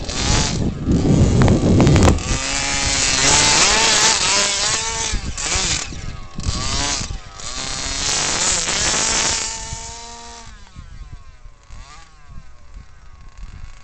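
Gas RC truck's 23cc two-stroke engine with a DDM tuned pipe, revving hard up and down in repeated bursts of throttle. After about ten seconds it drops to a much fainter engine drone as the truck gets farther away.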